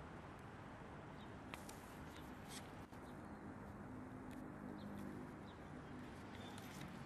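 Quiet outdoor ambience: a steady low background hum, a few faint high bird chirps, and soft scattered clicks and rustles close by.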